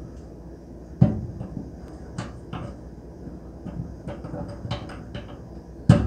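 Turntable hub being twisted by hand into its slot in the stainless-steel floor of a microwave air fryer oven: irregular small clicks and knocks as it is turned to find its one fitting position, with a louder knock about a second in and another near the end.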